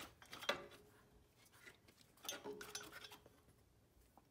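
Faint metal clinks and scrapes as the factory alternator is worked out of its mounting bracket, in two short clusters: about half a second in, and again around two to three seconds in.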